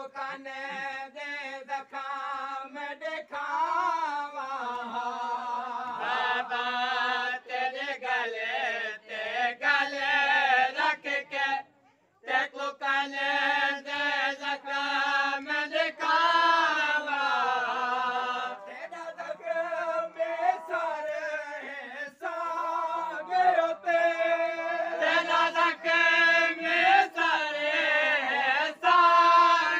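A man chanting a Punjabi noha, a Shia mourning lament, in long wavering held lines, breaking off briefly about twelve seconds in.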